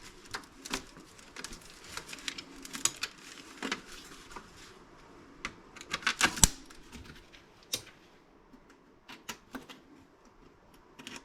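Small screwdriver prying brass inserts out of a laptop's plastic case: irregular sharp clicks, taps and scrapes, with a burst of louder clicks about six seconds in and only scattered clicks near the end.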